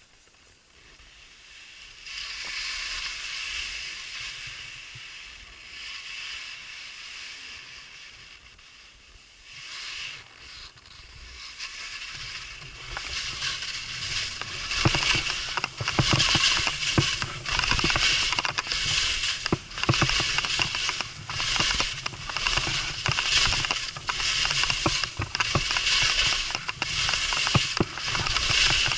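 Skis scraping and hissing over wind-crusted snow during an off-piste descent. First a steady hiss, then from about halfway a rhythmic scrape with each turn, about one a second, growing louder.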